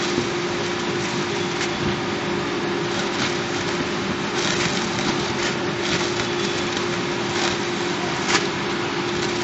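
Emplex MPS 7500 continuous band sealer running with a steady hum and a constant tone, amid loud factory noise. Short clicks and rustles come now and then as plastic-wrapped packs of paper rolls are fed through and sealed.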